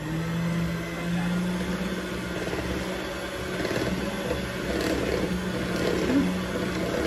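Electric hand mixer running steadily on its lowest speed, its beaters churning through cupcake batter in a bowl with a loud, even motor hum.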